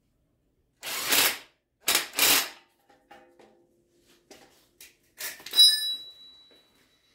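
Cordless impact driver run in two short bursts, driving a bolt through a steel control-arm bracket, followed by small metallic clicks. About five seconds in comes a sharp metal clang, the loudest sound, ringing on for over a second.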